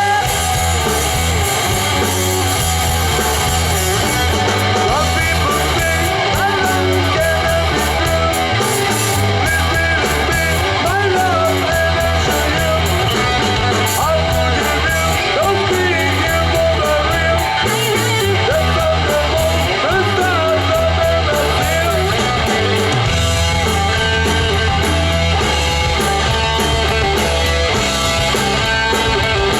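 Live heavy rock band playing at full volume: distorted electric guitar, bass and drums, with a sung vocal line over them.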